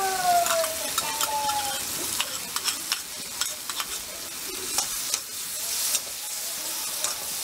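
Shrimp and vegetables sizzling in a steel wok over a gas flame while a metal spatula stirs them, scraping and clicking against the pan. A brief falling squeal sounds in the first two seconds.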